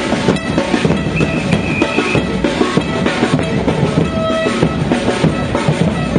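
Loud music with a steady drum-kit beat.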